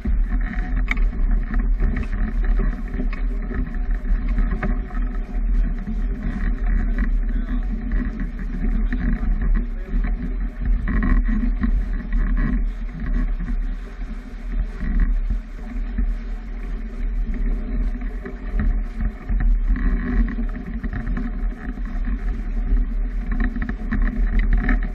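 Wind and water noise aboard a sailboat under sail: a steady low rumble of wind on the microphone with water rushing along the hull, muffled, with little high sound.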